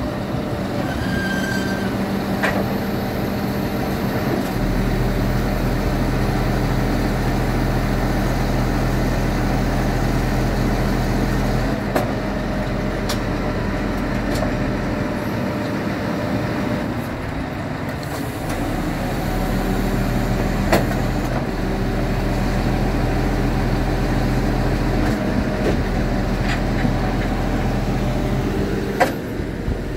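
Scania G490 truck's 13-litre straight-six diesel engine running at idle, a steady low hum that shifts in level a few times. A few light clanks are heard.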